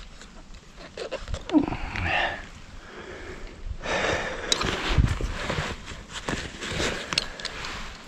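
A person breathing hard through the nose, with rustling and small cracks of leaves and twigs underfoot or in hand, the rustling strongest in the second half.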